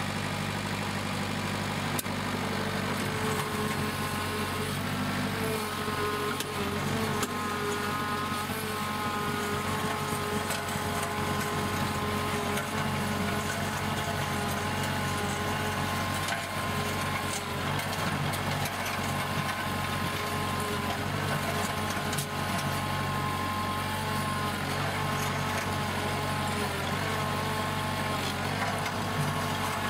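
Compact tractor engine running steadily while the tractor drags a box blade, with a fainter higher whine over the engine note.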